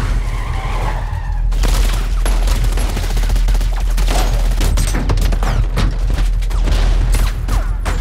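Film sound mix of a gunfight around a car: tyres skid for the first second and a half, then there is rapid, sustained automatic gunfire with bullets striking an Aston Martin DB5's body and windows, over a deep low rumble.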